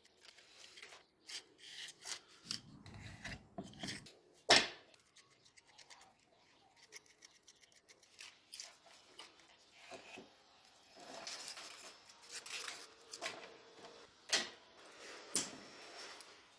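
Small parts being handled and worked by hand: scattered clicks and knocks, one sharper knock about four and a half seconds in, with stretches of scraping and rubbing between them.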